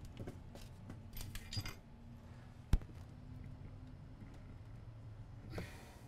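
Small clicks and rustles of a USB power meter and its charging cable being handled on a workbench, with one sharp click a little before halfway and a brief rustle near the end.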